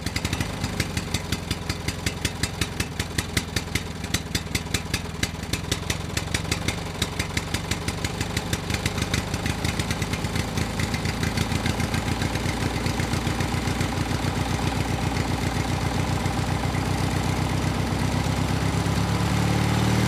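Engine chugging in even beats, about three a second at first, speeding up steadily until the beats merge into a continuous drone near the end, like a diesel engine revving up.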